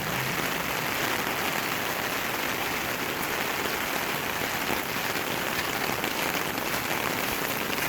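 Steady rain falling and splashing on surfaces, an even hiss, in a downpour heavy enough to flood the street.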